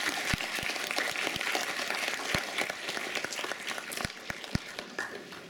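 Audience applause: many hands clapping together in a dense patter that thins out and fades near the end.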